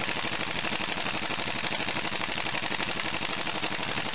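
Pneumatic impact wrench hammering steadily on a cylinder-head bolt of a Briggs & Stratton small engine's aluminium head, a fast even rattle of blows.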